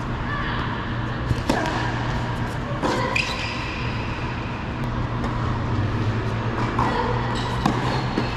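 Tennis ball struck by rackets and bouncing on an indoor hard court during a rally: sharp pops about a second and a half in, around three seconds in, and a few more near the end, with short shoe squeaks on the court surface. A steady low hum runs underneath.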